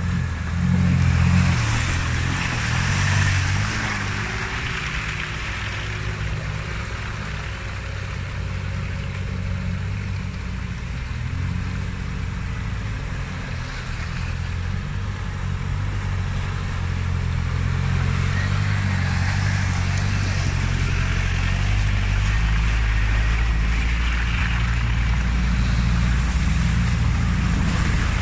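Off-road 4x4 engine working hard under load, revs rising about a second in and then holding steady, over a continuous hiss of tyres and wind.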